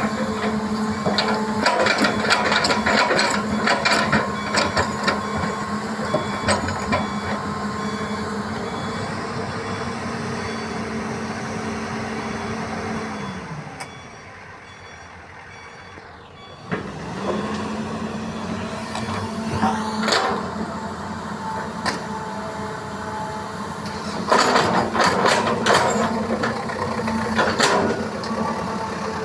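Heavy diesel earthmoving machinery running at a soil-loading site, its steady engine note overlaid by bouts of loud clattering and knocking near the start and again near the end. About halfway the engine note sinks in pitch and drops away for a few seconds, then comes back.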